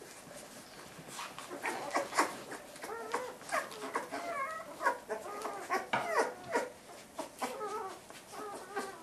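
Newborn Rhodesian Ridgeback puppies squeaking and whimpering in many short, wavering, high-pitched calls. The calls overlap from about a second in until near the end, as the puppies jostle for the teats.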